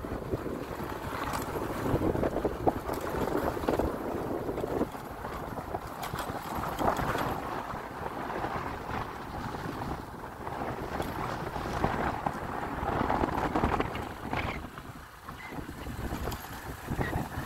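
Wind buffeting the microphone over the running engine of a motorbike riding a rough dirt track, uneven and rumbling, easing briefly near the end.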